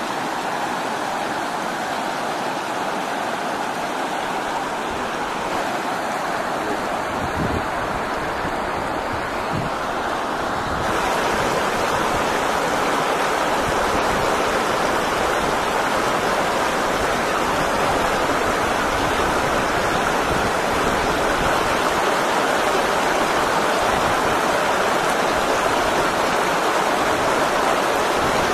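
Shallow river rapids rushing and churning over rocks in a steady, loud whitewater rush, which gets louder about eleven seconds in.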